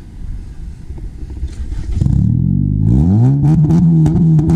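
Honda Civic four-cylinder engine through an aftermarket 'fart can' muffler, running low then revved up about halfway through, the exhaust note rising in pitch and held high near the end.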